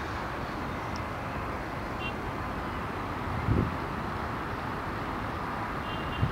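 Steady distant rumble of a city rail yard heard from far off. Wind buffets the microphone in two short low thumps, about three and a half seconds in and again near the end.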